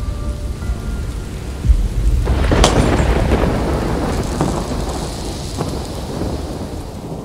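Thunderstorm sound effect: a low rumble of thunder under rain hiss, with a sharp thunderclap about two and a half seconds in that rolls on, the whole fading out near the end.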